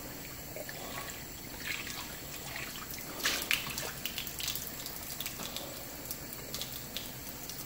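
Hot water running from a faucet into a sink, pouring off a cast iron skillet and down the drain. A few short, sharper noises come about three seconds in.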